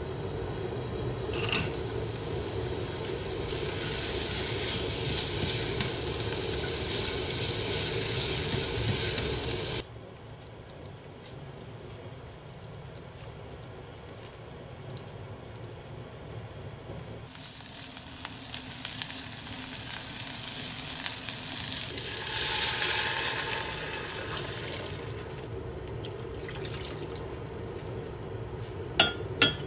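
Vegetables sizzling in olive oil in an enamelled cast-iron pot on a gas hob while being stirred. The sizzle stops abruptly about ten seconds in, returns more quietly, swells again later, and a couple of sharp utensil clicks come near the end.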